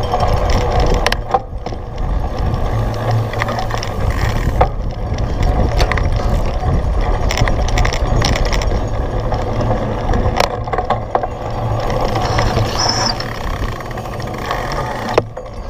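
Cyclocross bike ridden hard over rough ground: a steady low rumble of wind and tyres, with frequent rattling knocks from the bike.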